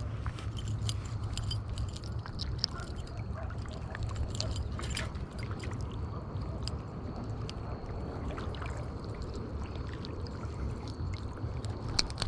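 Water splashing and gurgling at the edge of the lake, with many small scattered clicks over a steady low rumble.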